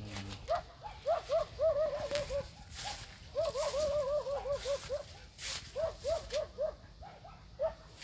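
A dog yipping in quick runs of short, rising-and-falling yips, several a second, up to about ten in a run, with short pauses between.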